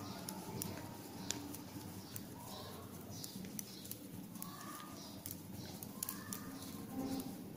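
Faint, irregular clicking of knitting needles as plain stitches are worked, with birds calling faintly in the background.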